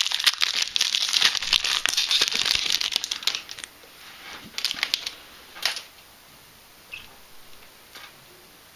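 Foil wrapper of a Yu-Gi-Oh booster pack crinkling and tearing as it is opened. The crinkling is dense for about the first three and a half seconds, then comes in a few scattered bursts.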